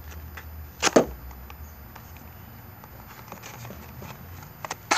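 A dive knife's straight edge slicing through a sheet of paper to test its sharpness: a short sharp rasp about a second in and another near the end, with a few light scratches of paper between.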